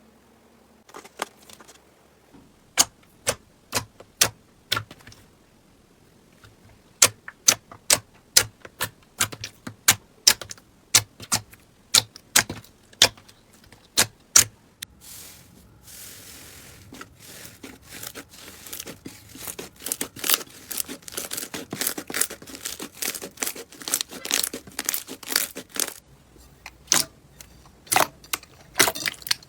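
Slime being squished and stretched, giving runs of sharp pops and clicks as trapped air bursts out of it. About halfway through there is a soft hiss, followed by denser crackling pops.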